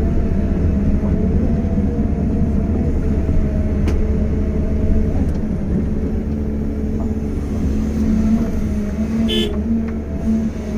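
Caterpillar 320 excavator's diesel engine running steadily under load, heard from inside the cab, as its bucket pushes a small bulldozer stuck in mud. A brief high-pitched chirp sounds about nine seconds in.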